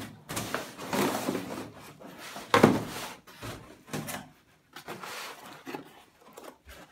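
Molded paper-pulp packaging and cardboard box scraping and rustling as the pulp insert is pulled out of the box, with one loud thump about two and a half seconds in, then lighter handling of the pulp tray.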